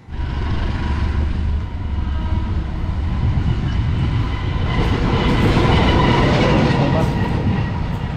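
Diesel locomotive approaching on the main line, its engine running with a loud, steady low rumble that grows louder about halfway through as it draws near.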